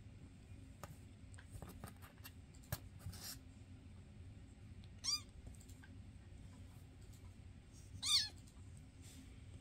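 Two short, high-pitched kitten mews about three seconds apart, the second louder, over faint scratching and rustling from kittens play-wrestling in a blanket-lined cardboard box.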